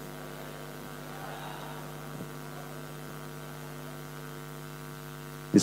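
Steady electrical mains hum from the wired microphone and sound system.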